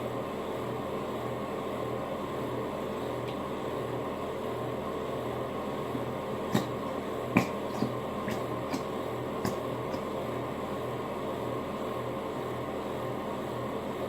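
Steady mechanical room hum with a faintly pulsing low drone, and a few light clicks and knocks about halfway through.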